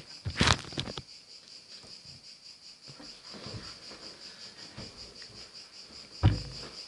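Knocks and rustling close to the microphone, with a cluster about half a second in and one heavy thump near the end. A steady high-pitched whine runs underneath.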